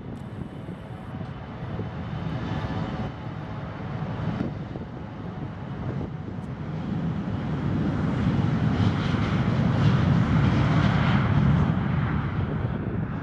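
Twin turbofan engines of an American Eagle Embraer E175 regional jet at takeoff power on the takeoff roll. A whine with several steady high tones at first gives way to a broad rush of jet noise that grows steadily louder, loudest about ten seconds in, and eases a little near the end.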